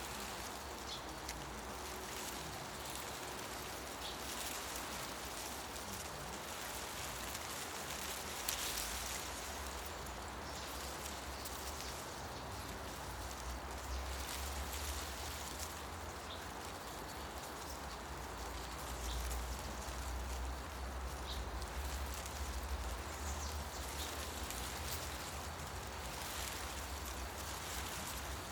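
Forest ambience: wind moving through tree leaves as a steady rustling hiss over a low rumble that swells in the middle, with a few faint, brief bird chirps.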